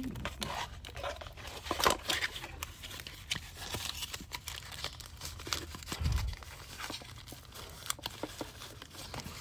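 Cardboard and clear plastic webcam packaging crinkling and rustling as it is handled and pulled apart, with scattered clicks and a dull bump about six seconds in.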